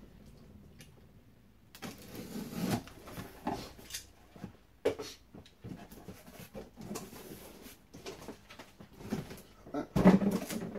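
A cardboard box being opened by hand: its top flaps are pulled apart and folded back, making a series of scrapes, rustles and soft knocks that are loudest near the end. It starts about two seconds in, after a quiet moment.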